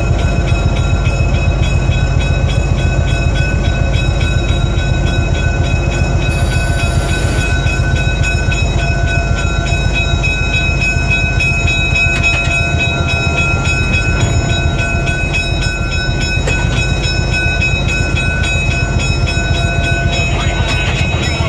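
Diesel-electric locomotive heard from inside its cab while it moves along the track: a steady low engine drone with fast even pulsing and a few steady high whines over it, one of which stops near the end.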